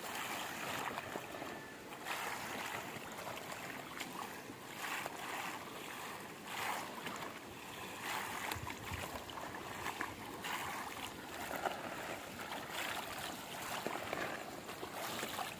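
Rubber boots wading through a flooded rice paddy, the water and mud sloshing with each step, about once a second.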